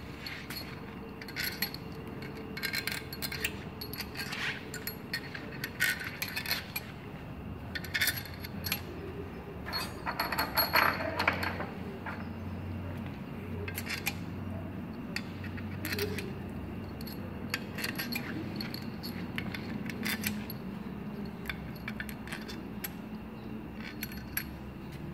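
Small metal engine parts clinking and tapping against each other and the cylinder head of a Thermo King engine as they are handled during an overhaul. The clicks come irregularly, with a thicker run of clatter about ten seconds in.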